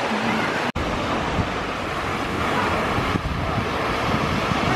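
Small waves breaking and washing up a sandy shore, with wind buffeting the microphone. The sound drops out for an instant under a second in, then goes on with more wind rumble.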